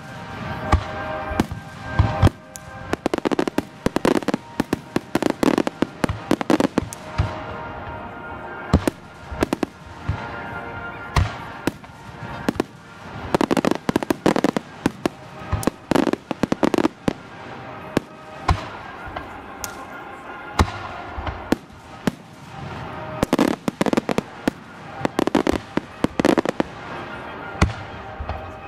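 Aerial firework shells bursting in rapid volleys: many sharp bangs and crackles, with deeper booms every few seconds.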